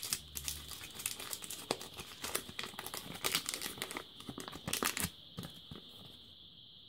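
Waxed tracing paper crinkling as it is crumpled and pulled open by hand: a run of crisp crackles that dies down about five seconds in.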